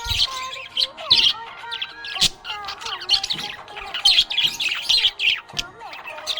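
Budgerigar chirping and warbling: a run of quick, short chirps over sliding, held whistle-like tones.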